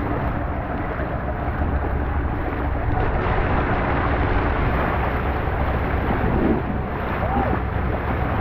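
Wind buffeting the microphone and water rushing past, steady and loud, as a boat moves at speed over the sea.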